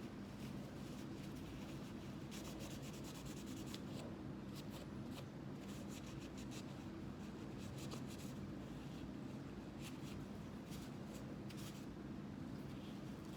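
Small cleaning tools scrubbing pistol parts in irregular short scratchy strokes, over a steady low hum.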